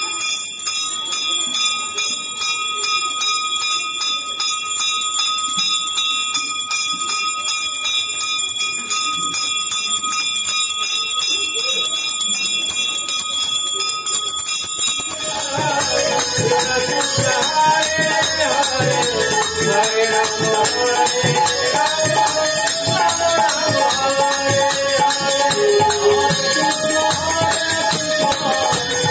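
A puja hand bell rung without pause during aarti, a steady ringing. About halfway through, devotional kirtan music joins in: a melody over strokes of a barrel drum, with the bell still ringing.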